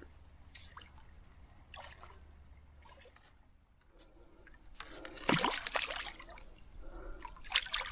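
Water splashing and sloshing as a barbel thrashes in a landing net held in shallow river water, loudest about five seconds in, with a shorter splash near the end.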